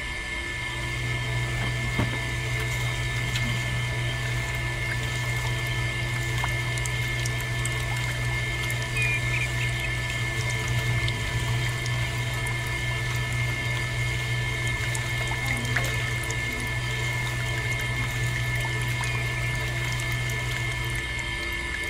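Small electric motor running steadily with a whine, driving the belt-driven rollers of a miniature sugarcane juice press. A lower hum joins about a second in and drops away near the end.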